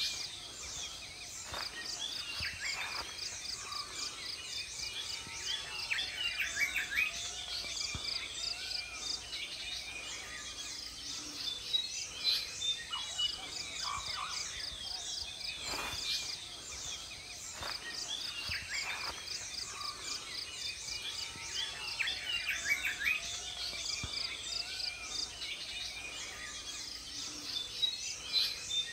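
Morning chorus of many birds chirping and calling, over a steady high pulsing of insects.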